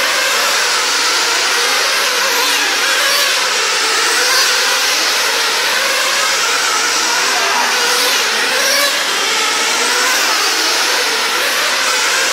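Several nitro-fuelled glow engines of RC sprint cars running at high revs together: a steady, dense, high-pitched whine whose pitch wavers as the cars lap.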